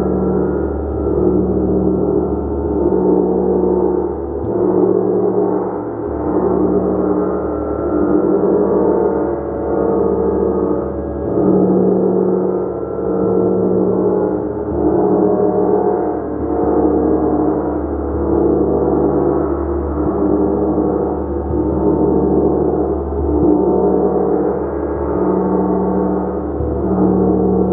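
Gong played continuously: a dense, sustained wash of many overlapping tones that swells and ebbs in a steady rhythm, about every one and a half to two seconds.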